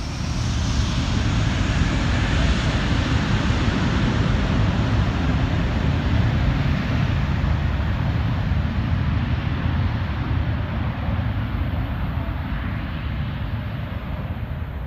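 Airliner taking off: engines at takeoff power, a deep rumbling roar with a high whine on top. It swells over the first couple of seconds, then slowly fades as the plane moves away.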